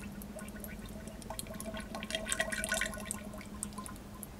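Fork oil poured into a Yamaha XJ6 Diversion fork tube, gurgling and bubbling as it runs down into the damper, the bubbling thickest in the middle seconds. A steady low hum sits underneath.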